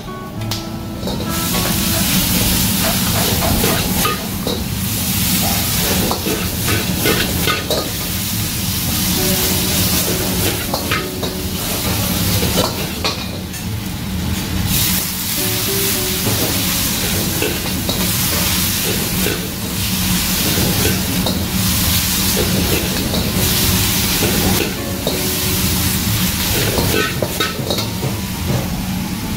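Vegetables and chili paste sizzling as they are stir-fried in a carbon-steel wok over a gas wok burner. A metal ladle scrapes and clanks against the wok many times over a steady frying hiss.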